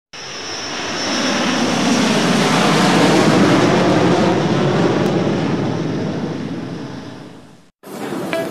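Airplane passing: engine noise swelling for about three seconds and then slowly fading, with a high whine at first. It cuts off abruptly near the end.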